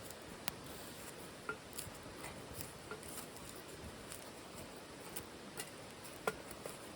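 Wood fire burning in a titanium wood stove: a faint steady hiss with irregular sharp crackles and pops, the loudest about six seconds in.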